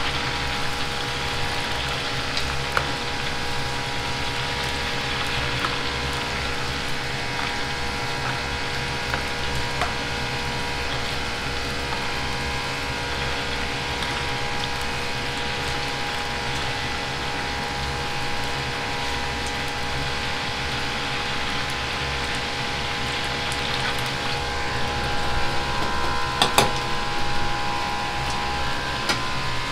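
A wok of liquid bubbling at a hard, steady boil over a commercial gas burner, with the burner's steady low hum underneath. Near the end there are a few sharp metal knocks as the wok is handled.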